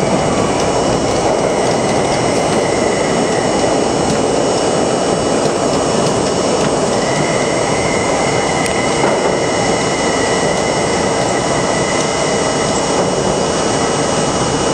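New York City subway train running through a tunnel and into a station, heard from inside the front car: a steady, loud noise of wheels on rail. A faint high whine comes in about seven seconds in and fades near the end.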